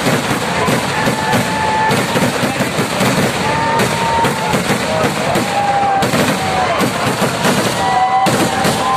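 Kerala temple vedikettu fireworks firing in a dense barrage: rapid, unbroken bangs and crackle of rockets and shells. High whistles sound over it, some held for about a second and some gliding up or down.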